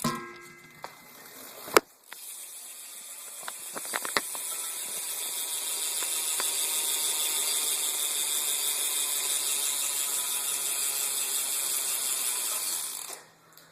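Eastern rear hub of a BMX bike freewheeling as the wheel spins, its pawls ratcheting in a fast, steady buzz that is pretty loud. A sharp click comes just before the buzz builds up, about two seconds in, and the buzz cuts off shortly before the end.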